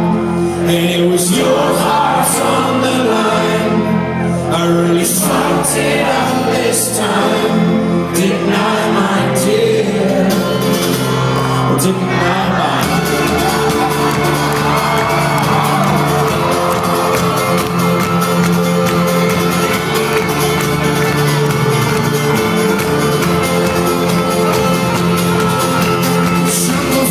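Folk-rock band playing live with singing, heard from the audience in a large hall. About halfway through, the rhythmic strumming and beats give way to a long held chord.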